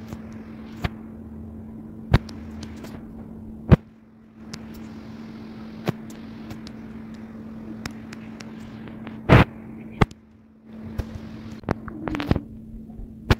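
Sharp taps of a finger or stylus on a phone's touchscreen while drawing, about nine of them, irregularly spaced, over a steady low hum and hiss of background noise.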